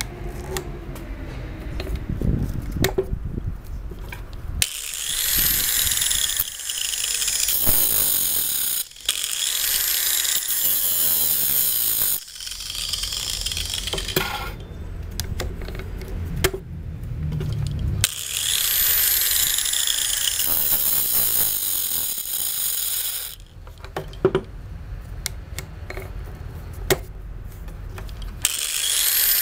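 Angle grinder sharpening the cutters of a chainsaw chain on the bar in several bursts of a few seconds, its whine rising at each start and falling away as the disc spins down. Between bursts the chain clicks as it is pulled round the bar by hand to the next cutter.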